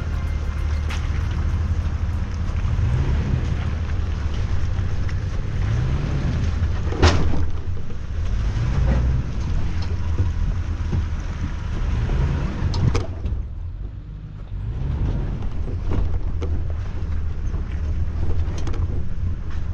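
Pickup truck engine running at low speed while crawling over a rough dirt and rock trail, its pitch rising and falling every few seconds, with wind buffeting the microphone and scattered knocks from the body and rack. A sharp thump about seven seconds in.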